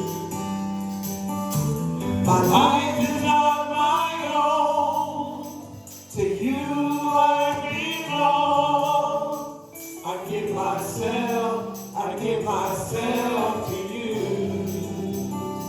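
Live worship music: a church worship band playing with voices singing sustained phrases.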